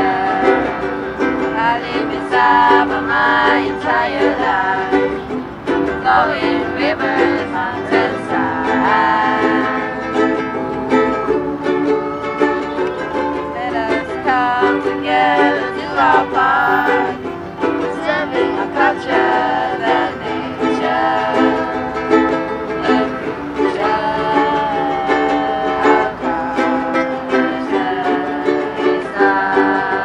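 Several ukuleles strummed together in a steady rhythm, with a group of voices singing the song's melody over them.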